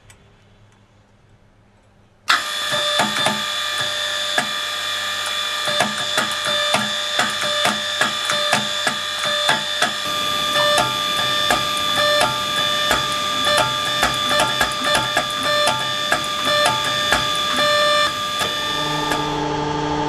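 Hydraulic forging press's power unit switched on about two seconds in and running with a steady multi-tone whine, with sharp clicks over it at roughly one to two a second. Shortly before the end the whine shifts to a lower pitch.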